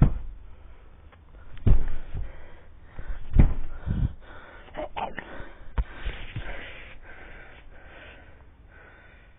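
Yellow Labrador huffing and snorting through her nose during rough play, with about five dull thumps and bumps in the first six seconds.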